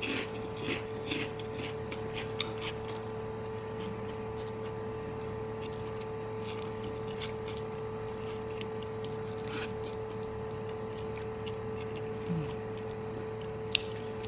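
Close-up eating sounds: chewing with wet mouth smacks, quick and frequent in the first few seconds, and instant fried noodles being slurped in, with a sharp click near the end. Under it runs a steady hum.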